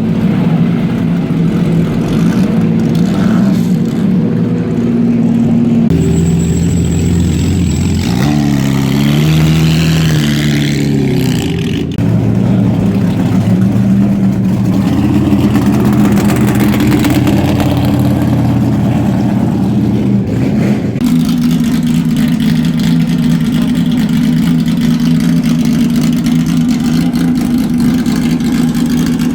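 Loud historic racing car engines running and being revved, in several short cuts. About a third of the way through, one engine's pitch rises and falls with throttle blips before settling into a steady run.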